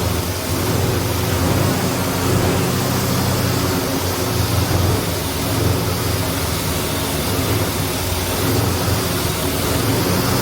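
1972 Chevrolet Chevelle Heavy Chevy V8 running steadily on its first restart after a new engine wiring harness was installed, with no air cleaner fitted yet.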